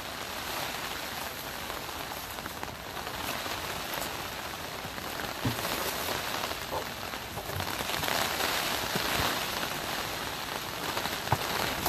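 Steady rain falling on the plastic cover of a hoop greenhouse, with a few light knocks partway through and near the end.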